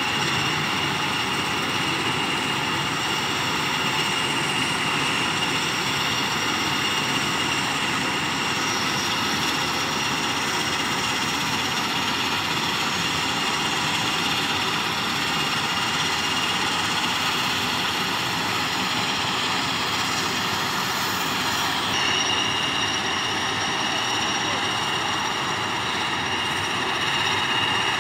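Steady aircraft turbine engine noise with a high whine over it, which shifts slightly about 22 seconds in.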